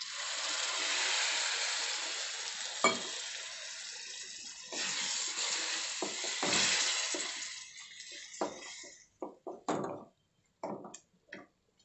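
Water poured into a hot stainless-steel pan of fried spiced onion-tomato masala, sizzling loudly as it is stirred in. The sizzle dies away after about nine seconds, leaving a few short scrapes of a spatula against the pan.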